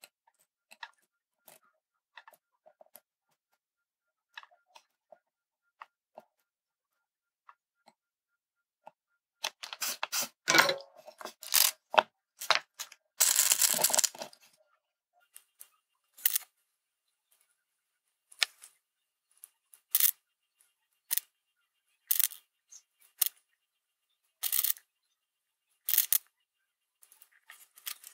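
Small clicks and taps of hands handling LEDs, a circuit board and tape on a cork mat. There is a busier stretch of rustling and clicking about ten to fourteen seconds in, then single sharp clicks every second or two.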